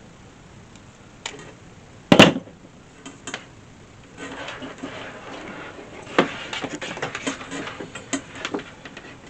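A sharp knock about two seconds in, then a few clicks and several seconds of irregular clicking and rattling, as of small parts and tools being handled.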